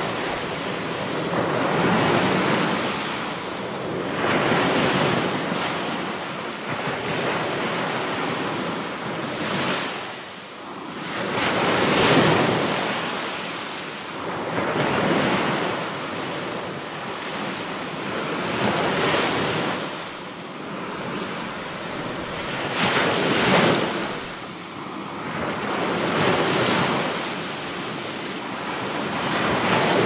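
Ocean surf: waves breaking and washing up the shore in a steady rushing noise that swells and ebbs every three to four seconds.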